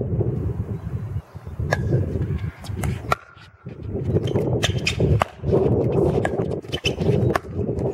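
Pickleball paddles striking a plastic pickleball during a rally: sharp pops, several in quick succession in short clusters, over a steady low rumble.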